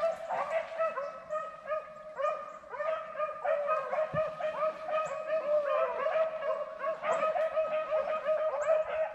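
A pack of beagles baying together, many overlapping voices yelping and bawling in quick succession without a break: hounds in full cry running a rabbit's track.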